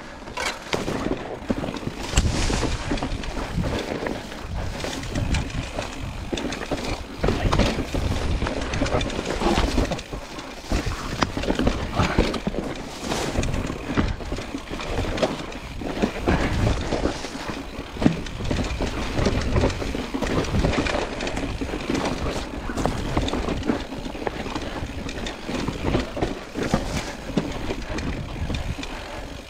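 Mountain bike rolling over a rough, rocky trail: a constant clatter of knocks and rattles from the bike and tyres over the stones, with a low rumble underneath.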